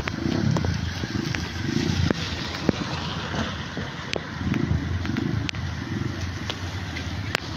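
Rain falling on a street: a steady hiss with many scattered sharp drop ticks, and low rumbling that swells and fades as cars drive along the wet road.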